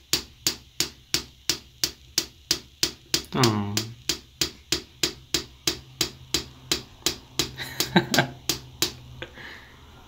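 Sun conure tapping its beak against a mirror: a fast, even run of sharp clicks, about four a second, that stops near the end.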